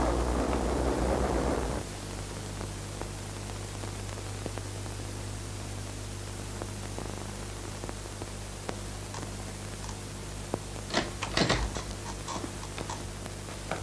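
Steady hiss and low hum of an old film soundtrack. A louder rush of background noise cuts off sharply about two seconds in. Near the end comes a short cluster of clicks and knocks from a door being opened.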